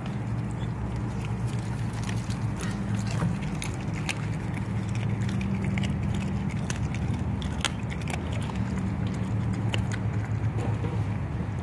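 Dog chewing halibut scraps, with short sharp crunches every second or two, over a steady low hum.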